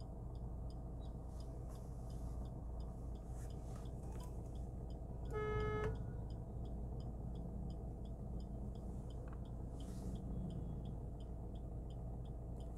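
Steady low traffic noise with a faint, regular ticking, and a vehicle horn honking once, briefly, about five seconds in.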